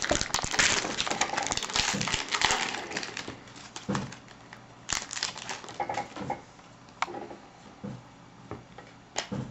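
Trading-card pack wrapper crinkling and cards being handled: dense crinkling for about the first three seconds, then scattered light taps and clicks.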